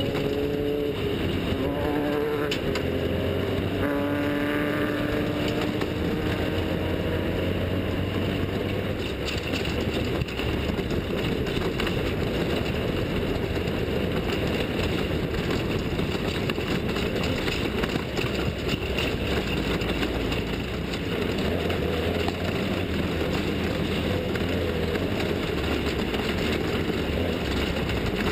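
Off-road desert race vehicle engines running past at speed. The engine pitch shifts up and down over the first several seconds, then gives way to a steady, rough engine and driving noise.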